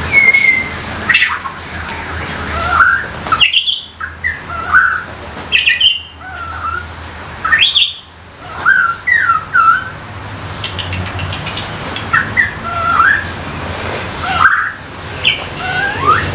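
White-rumped shama (murai batu) calling in short phrases every second or two: quick sweeping whistles mixed with harsh 'koar koar' notes, over a steady low hum.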